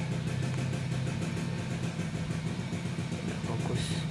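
A steady low mechanical drone, like an engine or motor running at idle, with a brief hiss near the end.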